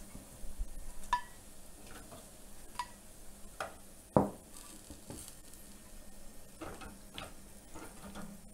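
Metal tongs clicking and clinking against the wire rack of an electric grill as grilled pork ribs are picked up and set on a plate, with a faint sizzle underneath. One louder knock comes about four seconds in.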